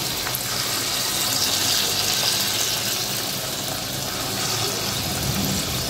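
Besan (gram-flour) pakoras deep-frying in hot oil in a small pan: a steady sizzle.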